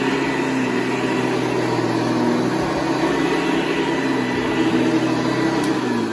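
1981 Hoover Convertible U4173 upright vacuum running steadily: its motor spinning a 12-bladed metal fan, a steady hum with a faint high whine.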